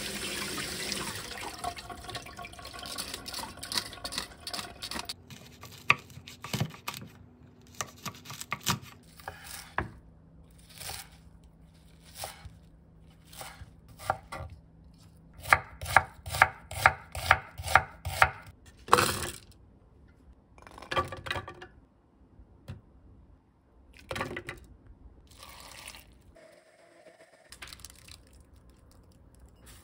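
Water from a tap running over a stainless steel colander, fading out within the first few seconds. Then a kitchen knife chops on a wooden cutting board in sharp separate knocks, with a steady run of about two chops a second about halfway through.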